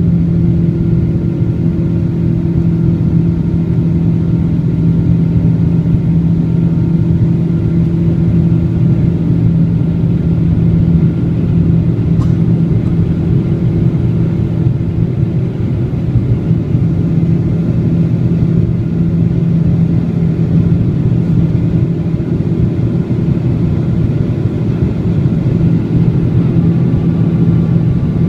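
Boeing 777-200's twin Pratt & Whitney PW4000 turbofan engines running: a loud, steady low rumble with a few held tones that do not rise or fall.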